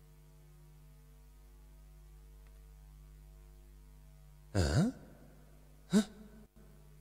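A steady low hum with faint pitched tones over it. About four and a half seconds in comes a short swooping sound effect whose pitch falls and then rises, and a briefer swoop follows near six seconds.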